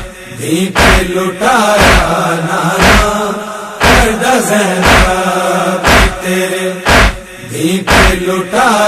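Noha introduction: a male chorus holds a sustained, chant-like hum with gliding melodic lines, over a steady beat of sharp slaps about once a second, in the manner of matam chest-beating.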